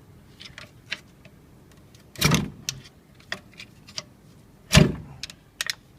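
Mazda 3 rear brake caliper being forced to swing up on its upper guide pin: light metallic clicks and two loud knocks, one about two seconds in and one near the end, as the stiff caliper, bedded in, is worked loose.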